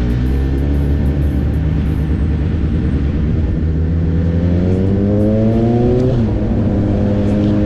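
Motorcycle engine under acceleration: the revs hold steady, then climb through the second half, dip sharply at an upshift about six seconds in and pull on again, over rushing wind noise.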